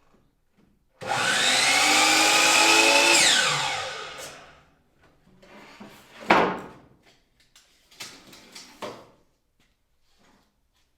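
An electric power tool's motor switches on, spins up, runs for about two seconds and winds down with a falling whine. It is followed by a sharp knock and a few lighter knocks of wood being handled.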